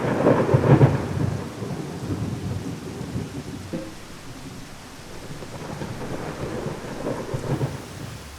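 Thunderstorm sound: low rolling thunder over steady rain. It is loudest in the first second, dies down, then rumbles up again near the end.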